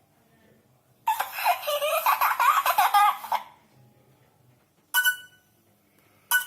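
Nokia N92 phone speaker playing a laughter ringtone, a giggling sound clip lasting about two and a half seconds from about a second in. Two short beeping notes follow near the end.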